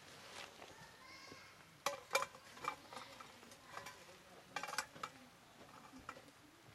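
Cast iron skillet being set onto a stainless steel wood-burning camp stove: a series of sharp metallic knocks and clinks as the pan settles on the stove top, loudest about two seconds in.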